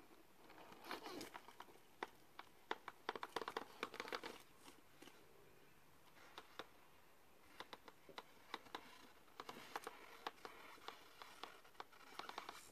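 Faint clicking and crunching as the tyres of an HSP Rock Hammer 1/10-scale RC rock crawler grip and scrabble over rock, grit and dry debris. The sound comes in two clusters of quick crackles, with a lull in between.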